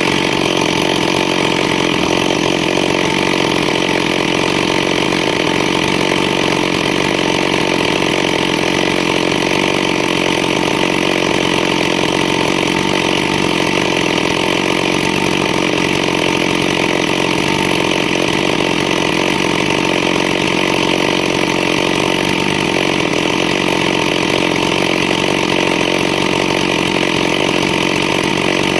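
Chainsaw engine running steadily at high speed, loud and even, with no pauses or changes in pitch.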